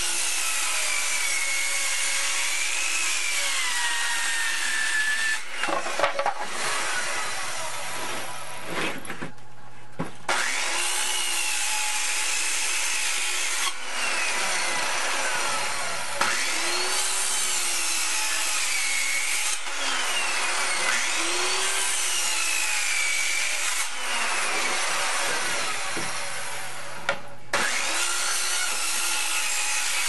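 A saw cutting through wood: a continuous cutting noise with a whine that bends up and down in pitch, going in passes of three to five seconds each.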